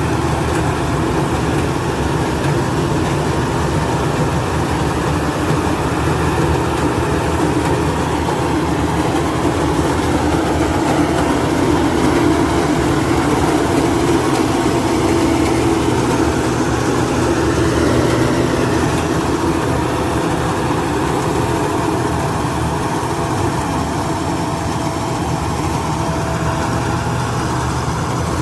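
Rice combine harvester running steadily: a continuous engine drone with a few steady whining tones, growing slightly louder around the middle.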